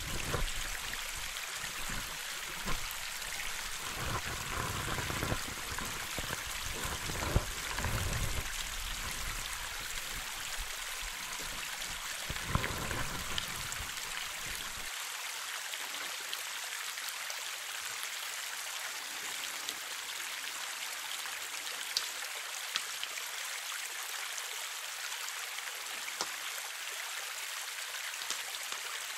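Shallow creek water running over rocks in a steady rush. Low bumps and rumbles sit under it in the first half and stop about halfway through.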